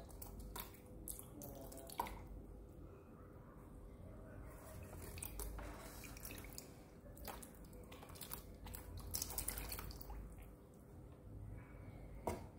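Small splashes and drips of water from a hand stirring and lifting fish in a shallow tub. The splashes are irregular, with sharper ones about two seconds in and near the end, over a faint steady hum.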